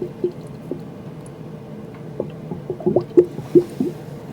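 Kitchen sink drain gurgling with irregular gulps and bubbles, busiest about two to four seconds in, as bathtub water drains through the shared pipe. The plumber takes this gurgling for the warning sign of a nearly blocked drain, with buildup at the pipe's outlet into the outdoor catch basin.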